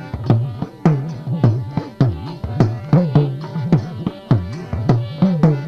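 Instrumental break in Gujarati dakla devotional folk music: a hand drum plays a quick repeating rhythm whose low strokes bend downward in pitch, over a steady held tone from an accompanying instrument.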